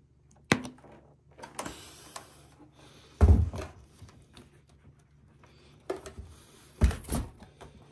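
Handling noises: a sharp click, a short rustle, then two dull, heavy thumps about three and a half seconds apart, with lighter knocks around them, as objects are picked up, moved and set down.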